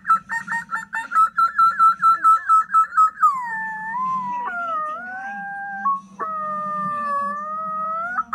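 Beagle whining: first a quick run of short, high whines, about five a second, then two long, drawn-out whines that waver gently in pitch, with a short break between them.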